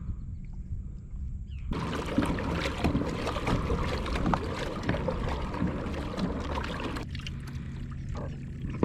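Water splashing and sloshing around a kayak, with many small knocks against the hull. It starts suddenly about two seconds in and stops about seven seconds in, over a low steady rumble of wind on the microphone.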